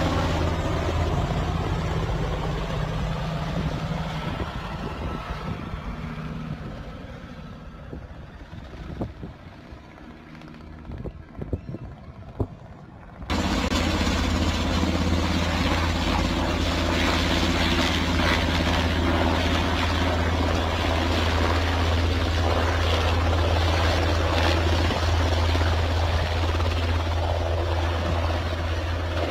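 Coastguard search-and-rescue helicopter flying low overhead: a steady rotor and turbine drone that fades away as it moves off. About halfway through it cuts back in loud and holds steady.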